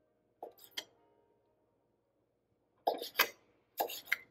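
Victorinox kitchen knife cutting through cooked octopus tentacle and knocking on the cutting board: short sharp chops in pairs, about half a second in, then around three and four seconds in.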